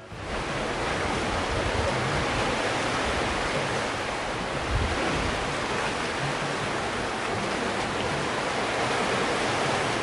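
Sea surf washing onto a rocky shore: a steady rush of breaking waves.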